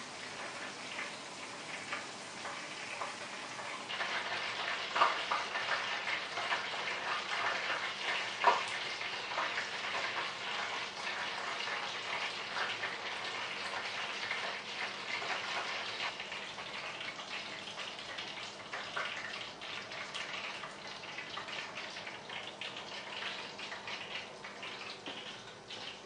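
Small pet animals rustling and scratching through wood shavings and seeds in a plastic tray, a dense crackle of tiny clicks, with two sharper clicks about five and eight and a half seconds in.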